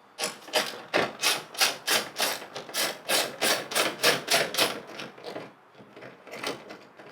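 Quick, even scraping and clicking strokes of a hand tool working on a car door's metal inner frame, about four a second for some five seconds, then a couple more near the end.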